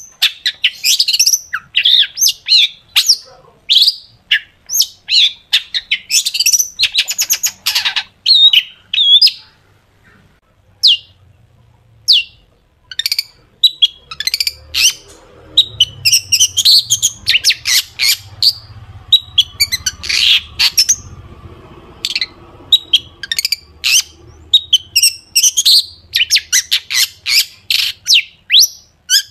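Long-tailed shrike (cendet) singing a fast string of sharp, high, shot-like notes and rapid trills, with a pause of a few seconds about ten seconds in.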